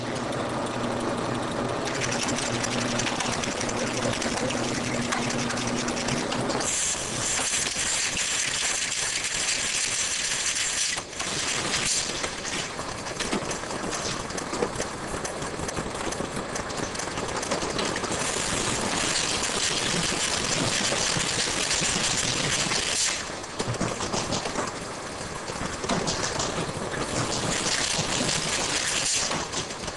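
Bottling-line machinery running. A steady motor hum lasts about the first six seconds, under a busy rattle of many small clicks. A higher hiss comes in twice and drops away.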